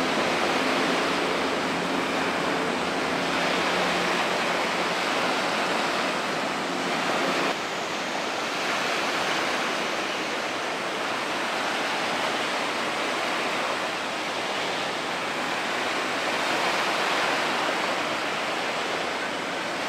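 Steady rushing of sea water and wind along the strait shore. A low, steady hum sits under it in the first few seconds.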